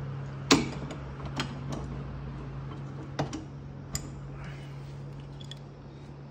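A few sharp metallic clicks and taps of hand tools working on a refrigerator compressor's fittings, spaced irregularly, the loudest about half a second in, over a steady low hum.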